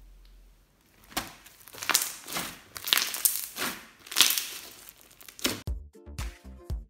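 Hands squishing and pressing fluffy slime mixed with small foam beads: a run of about half a dozen short, sharp squishes. Near the end, electronic music with a steady beat comes in.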